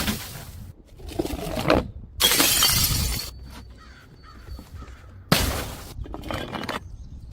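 Glass bottles breaking: a few separate smashes and shattering crashes, the loudest about two seconds in and another sharp one about five seconds in.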